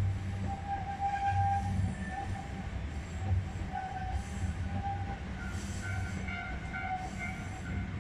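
Sangi Railway Hokusei Line narrow-gauge electric train running, heard from the driver's cab: a steady low motor and running hum, with high ringing tones that come and go over it.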